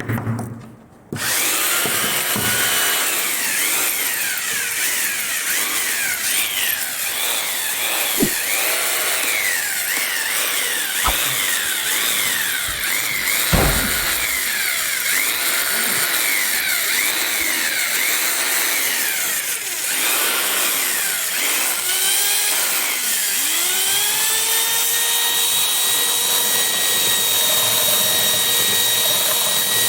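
Electric power tool motor whining, its speed rising and falling over and over. About two-thirds of the way through it spins up and holds a steady pitch. A few sharp knocks fall in between.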